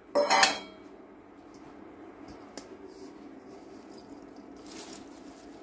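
Shredded savoy cabbage being tipped from a metal bowl into a cast-iron casserole of diced smoked bacon in hot olive oil. There is a brief loud rustle right at the start, then a faint steady background with small ticks, and a rustle of the leaves going in about four and a half seconds in.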